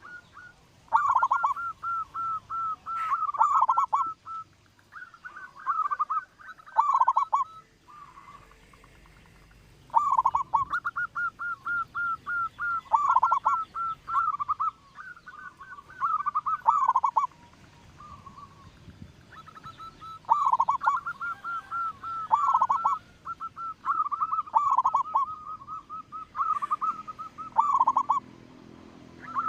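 Zebra dove (perkutut) cooing in repeated phrases of rapid staccato notes, with short pauses between the phrases.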